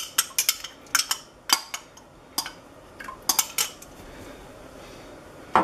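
Metal tongs clinking and tapping against a glass dish as corn is scraped out of it into a stainless steel pot: a quick run of sharp clicks for the first few seconds, then quieter, with one more clink at the end.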